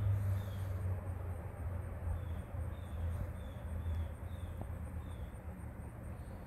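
An insect chirping in short high chirps, about two a second, over a steady low rumble.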